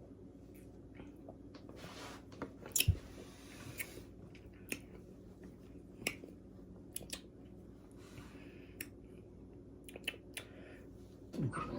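A person drinking orange cream soda: faint sips and swallows with scattered small mouth and throat clicks. The loudest gulp comes about three seconds in.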